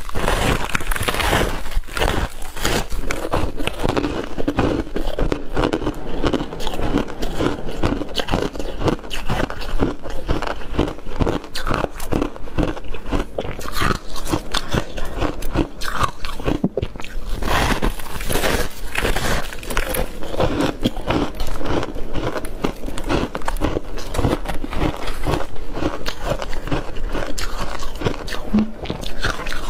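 Crunchy bites and chewing of soft, packed freezer frost (freezer foam ice), a dense run of rapid crunches with no pause.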